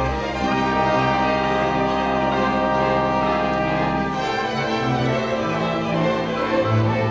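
A small orchestra of bowed strings with double basses plays live, holding sustained chords. About four seconds in, the steady low bass drops away and gives way to shorter, separate low notes.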